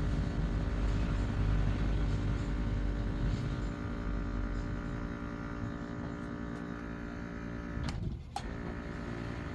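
Water pump of a Singflow bottom-loading water dispenser humming steadily but drawing no water up from the bottle, the sign of the pump failing to suck. The hum stops about eight seconds in, followed by a couple of clicks.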